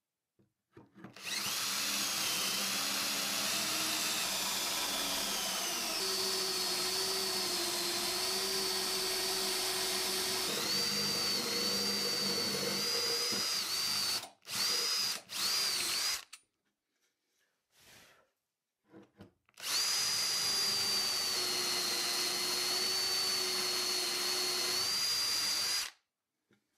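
Cordless drill boring holes into a plywood workbench top with a Forstner bit through a wooden drill guide: a steady motor whine that drops in pitch as the bit bites. It runs in two long stretches, with a few short stop-start bursts and a pause of a few seconds between them.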